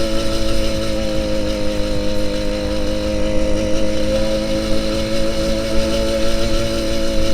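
Engine of an 80cc two-stroke motorized bicycle running at a steady, high pitch while riding, with its exhaust pipe cut short.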